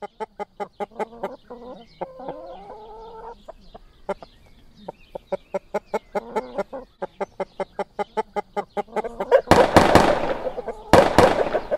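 Chickens clucking rapidly, about four clucks a second, with a few longer drawn-out squawks early on. About three quarters of the way through, loud bursts of gunfire break in over the clucking, twice.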